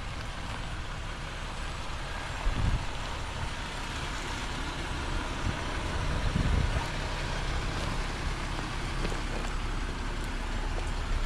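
Jeep Wrangler driving slowly over dry dirt and stones: engine running low with tyre and ground noise, and two louder low surges about two and a half and six and a half seconds in.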